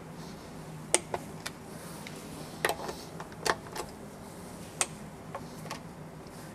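Scattered sharp clicks and ticks of hand tools on metal as the drivetrain bolts are torqued down, the loudest about a second in, over a steady low hum.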